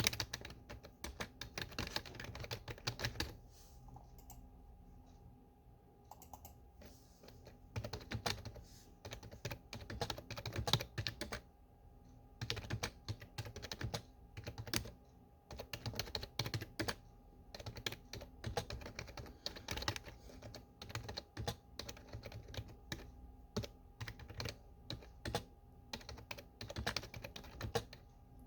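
Typing on a desktop computer keyboard: quick runs of key clicks broken by short pauses.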